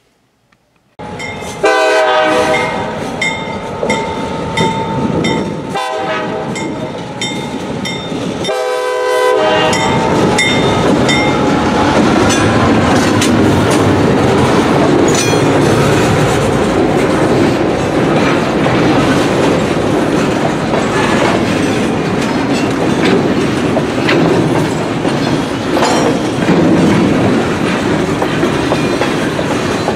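Train locomotive horn sounding three blasts, the last one short. Then the train runs past with a steady rumble and wheels clattering over the rail joints.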